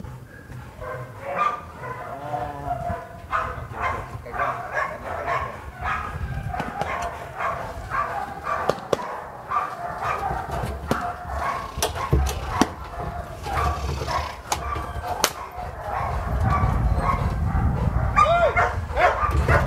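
A Belgian Malinois barking again and again, short sharp barks in quick succession, as it is held back on its leash during bite-work training.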